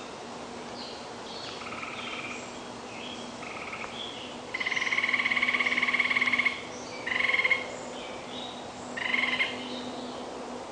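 Animal calls: a rapid pulsed trill lasting about two seconds near the middle, followed by two shorter trills, over softer scattered chirps and a faint steady hum.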